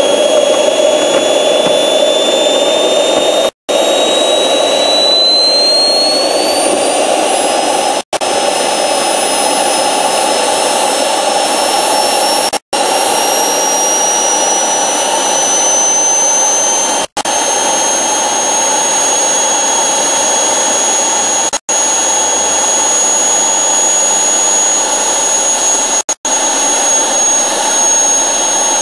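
Kingtech K140F kerosene-fuelled model jet turbine running on a test bench: a loud steady roar with a high whine that rises in pitch over the first several seconds and climbs a little again about halfway through, as the throttle is brought up. The recording cuts out for an instant every few seconds.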